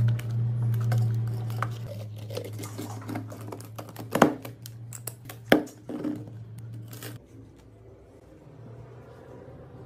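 Sharp clicks and knocks of hard plastic as granola cakes are loaded into a clear plastic dispenser, the two loudest about four and five and a half seconds in, over a steady low hum that stops about seven seconds in.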